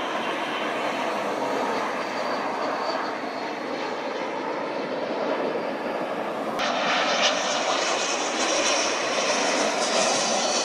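Embraer C-390 twin-turbofan military transport flying past, its jet engines making a continuous rushing noise. About two-thirds through, the sound abruptly turns brighter and hissier, with the aircraft low with its landing gear down.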